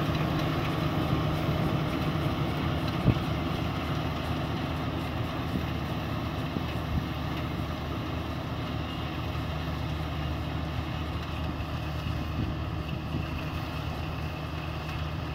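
Crawler rice combine harvester's engine running steadily while it cuts rice, a low drone that slowly fades as the machine moves away.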